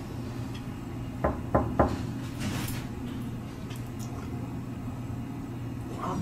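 Three quick knocks on a hotel room door, about a second in, over a steady low hum.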